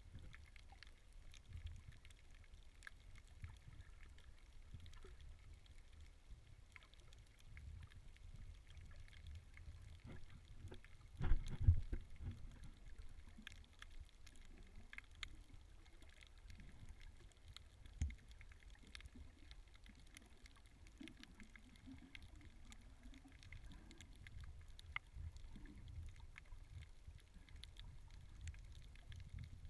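Underwater ambience heard through a submerged camera on a coral reef: a low rumble of moving water with scattered faint clicks. A louder low thump with a brief rumble comes about eleven seconds in, and a smaller thump near eighteen seconds.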